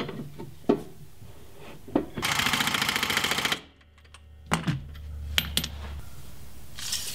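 Pneumatic impact wrench hammering a leaf spring bolt tight in a fast rattle that lasts about a second and a half, beginning about two seconds in. Before it come sharp metallic clinks of a hand wrench on the shackle bolts, and after it a low hum and a few clicks.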